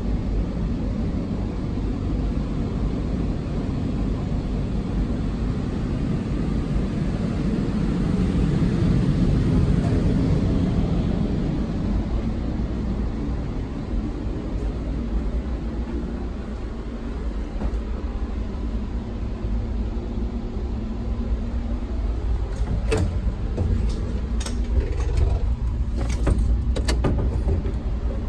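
Steady low rumble of running machinery, swelling a little about ten seconds in and then easing. It is followed by a run of sharp clicks and creaks over the last several seconds.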